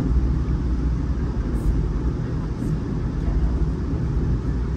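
Steady low rumble of a moving passenger train heard from inside a Budd stainless steel Skyline dome car: wheels running on the rails, with no change in pace.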